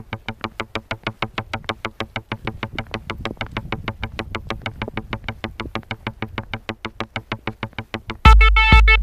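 Background electronic music: a fast, even run of short synthesizer notes, about eight a second, then near the end a loud entry of deep bass with held chords.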